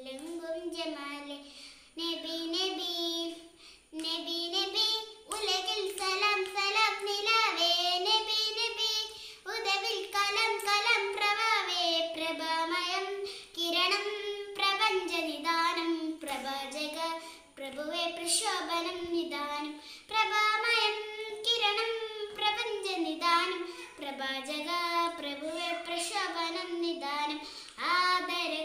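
A young girl singing solo without accompaniment: a long melodic line of held, wavering notes broken by short pauses for breath.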